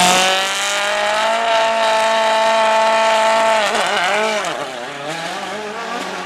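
Rally car engine at full revs leaving a stage start: a sharp crack, then the engine held high and steady for about three seconds before its pitch dips and wavers and it drops lower and fainter as the car pulls away.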